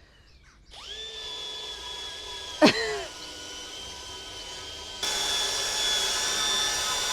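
A handheld electric power tool, of the kind used to polish the log burner's metal, starts up and runs with a steady whine. A short sharp sound cuts in about two and a half seconds in. The tool gets louder and rougher from about five seconds in.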